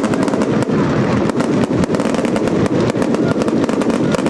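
Daytime fireworks display firing fast: a dense, continuous stream of sharp bangs and crackles with no break, as many small white reports burst in the sky above red smoke effects.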